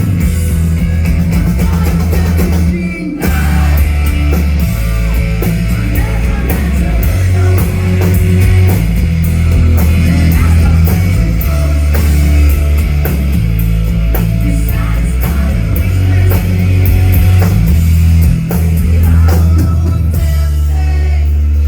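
Live rock band playing loud, with heavy bass, guitars and a driving drum kit. The band cuts out for a moment about three seconds in, then comes back in.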